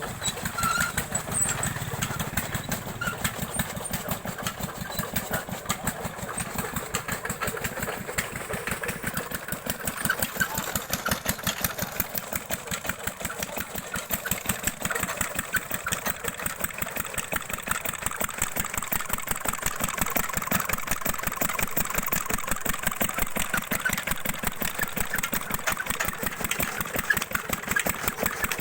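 An engine running steadily, with rapid, even firing throughout.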